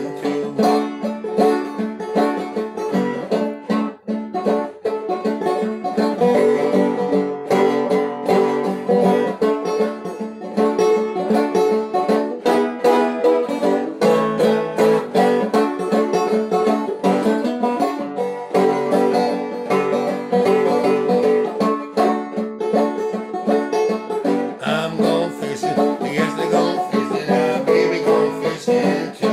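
Solo banjo played old-time style: a steady instrumental stretch of quickly plucked notes.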